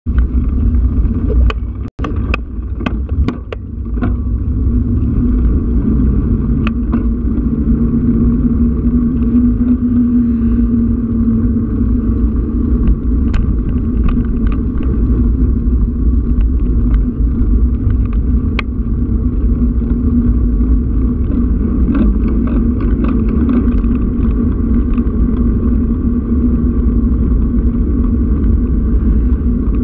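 Steady low rumble of wind and road noise on an action camera mounted on a vehicle moving along a road. A few sharp clicks and knocks come in the first four seconds, with a brief dropout at about two seconds.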